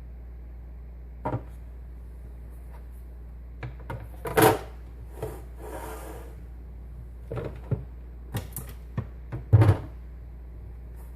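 Objects being handled and set down: a series of irregular knocks and clicks, the loudest about halfway through and again near the end, over a steady low hum.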